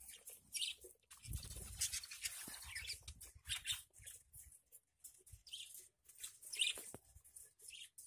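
Budgerigars chirping in short, high calls, several times over, with camera handling rubs and light knocks.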